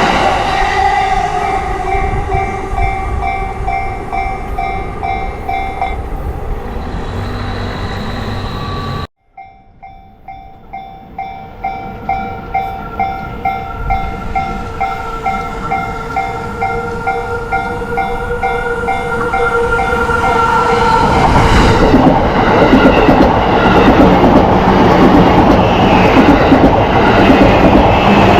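Railway level-crossing warning bell ringing in an even pulsed rhythm, about two strokes a second. It breaks off suddenly about a third of the way in, then rings again with a steady tone beneath it. Near the end a Yamanote Line train passes over the crossing, a loud rushing rumble that covers the bell.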